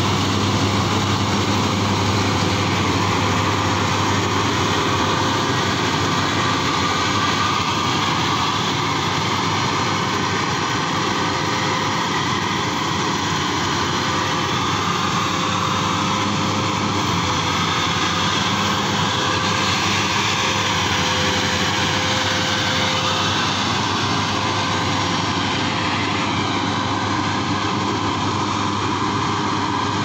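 BIMO rice combine harvester's diesel engine running steadily as the machine crawls on its tracks through deep, sticky paddy mud, harvesting rain-flattened rice.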